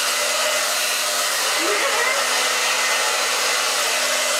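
Handheld hair dryer (blow dryer) running steadily: a loud, constant rush of air over a steady motor hum.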